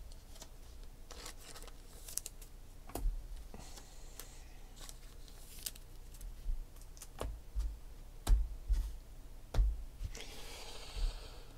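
Trading card being handled and slipped into a plastic sleeve: scattered light taps and clicks, with a short plastic rustle about ten seconds in.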